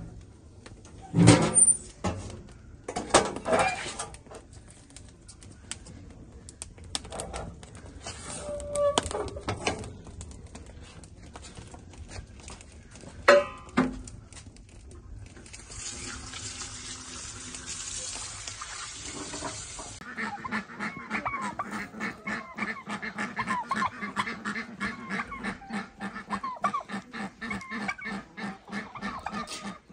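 Knocks and clatter at a brick oven as a tray is pushed in on its rack, then a few seconds of steady hiss. For the last third, a flock of chickens clucking and calling.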